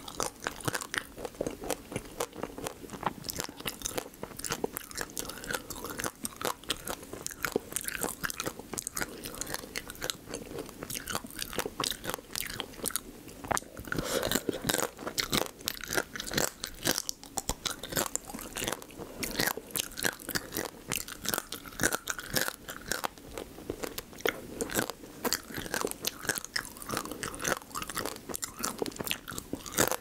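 Close-miked crunching and chewing of raw crab marinated in spicy red sauce, its soft shell cracking between the teeth in many quick crackles.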